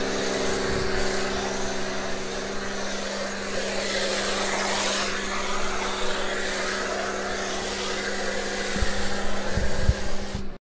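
Electric pressure washer running with a steady hum while its foam cannon sprays soap foam onto a car with an even hiss. A few low thumps come near the end, and the sound cuts off abruptly just before the end.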